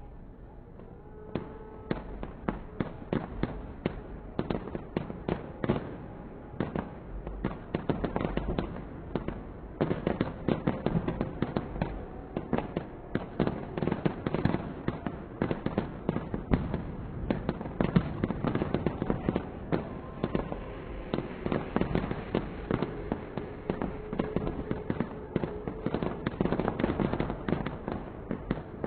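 Fireworks display: a dense, continuous run of sharp cracks and bangs, several a second, starting about a second and a half in.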